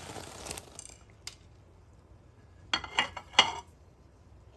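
Granulated sugar poured from a bowl into a pan of milk, a soft hiss in the first second. Near three seconds in comes a quick run of sharp clinks, the loudest sound, as kitchenware knocks against the pan.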